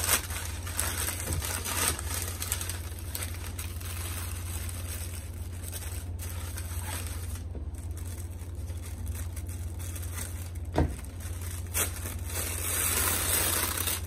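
Kraft packing paper and tissue paper rustling and crinkling as they are handled and pulled away from a shipped potted plant, with a couple of sharp clicks near the end and a louder rustle just after. A steady low hum runs underneath.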